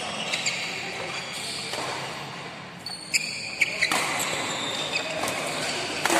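Badminton rally: rackets hitting the shuttlecock in sharp cracks, three in quick succession about halfway through, with high squeaks around them that fit court shoes on the floor. Near the end comes the loudest hit, a hard jump smash.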